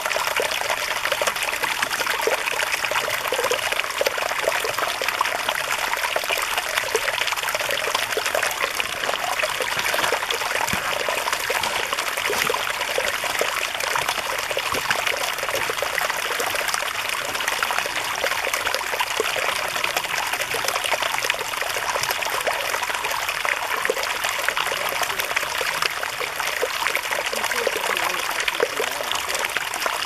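Mountain valley stream flowing: a steady rush of water with fine trickling and splashing, unchanging throughout.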